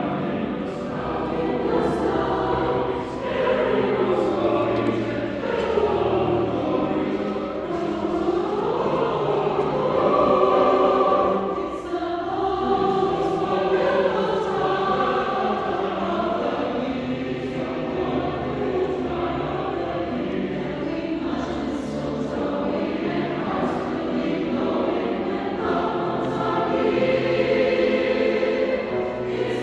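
A choir singing, many voices together in sustained, moving lines with low notes underneath.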